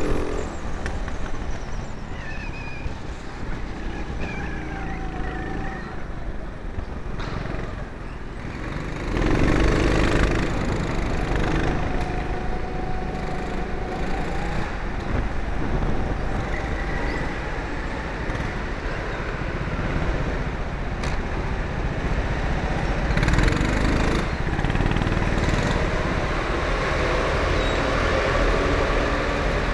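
Four-stroke rental go-kart engines running. The engine note rises and falls with the throttle, and there is a steady mechanical rattle underneath.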